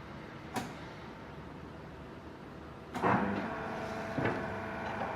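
Hydraulic HDPE butt welding machine: a low steady hum, a sharp click about half a second in, then about three seconds in a louder mechanical whirring with a clunk that runs for about two seconds.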